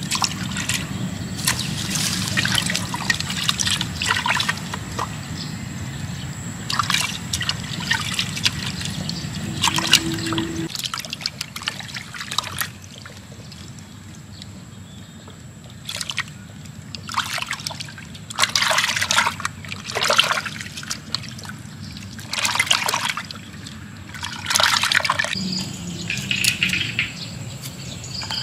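Water sloshing and splashing in short, repeated bursts as hands wash skinned frogs in a pot of water.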